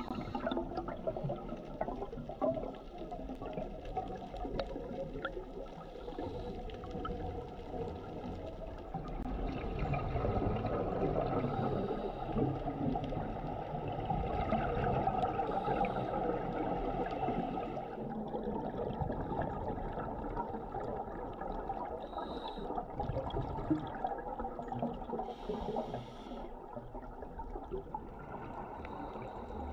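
Scuba diver's breathing heard underwater through a regulator: air drawn in and exhaled in gurgling bursts of bubbles, over a steady wash of water noise, swelling louder with each exhalation.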